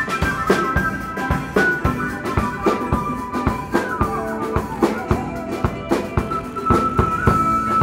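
Busker music from a drum kit keeping a steady beat with snare and bass drum, under a wind-instrument melody of held notes.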